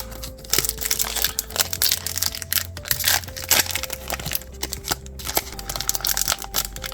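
Trading card pack wrapper crinkling and tearing as it is worked open by hand, a dense run of irregular crackles, with the pack described as a little hard to open.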